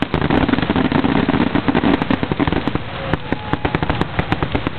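Fireworks finale: a rapid, irregular barrage of shell bursts and crackling reports, many overlapping bangs.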